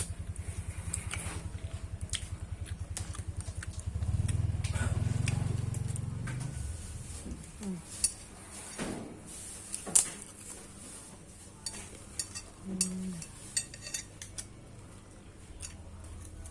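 Spoons and fork clinking and tapping on a plate during eating, scattered sharp clicks through the second half. Under the first half, a vehicle engine runs with a fast low throb, swelling louder about four seconds in and fading away by about seven seconds.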